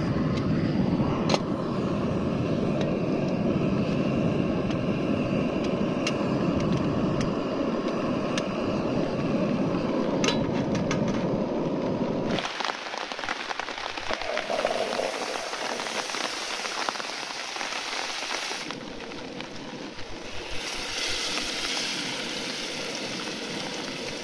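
Trangia stove's gas burner burning at full flame with a steady low rush and a few sharp clicks. About twelve seconds in, this gives way to a higher hissing sizzle: steak frying in butter in the pan on the stove.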